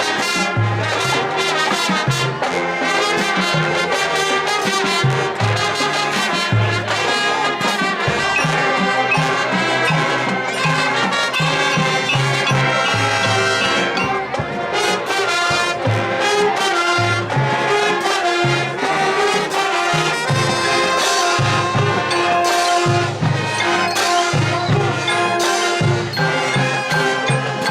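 Marching band playing: a brass melody of trumpets and trombones over a steady drum beat and a moving line of low bass notes.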